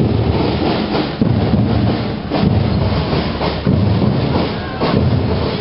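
School fanfarra (drum and bugle marching band) playing as it marches, with drum beats coming roughly once a second under a loud, rough wash of band sound.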